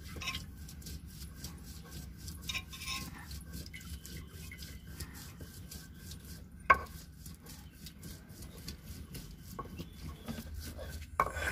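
Hands working fresh butter out of buttermilk in a clay pot and pressing it into a clay bowl: faint wet rubbing and light taps against the earthenware, with one sharper click about two thirds of the way through.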